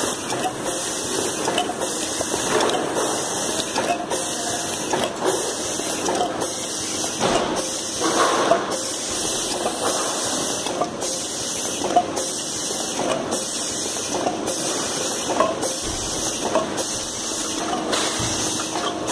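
Ice cream cup filling machine running in a steady cycle about once a second: a continuous hiss of air that breaks off briefly each cycle, with light mechanical clacks from the cup table and filling head.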